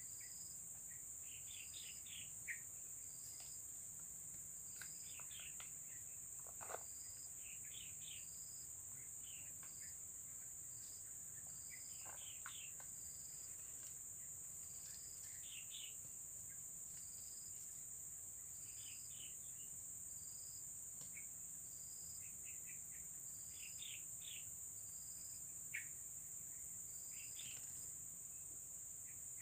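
Insects droning in a steady high band through the whole stretch, with a short high chirp repeating about once a second and scattered bird chirps. A couple of faint ticks stand out, one early and one near the end.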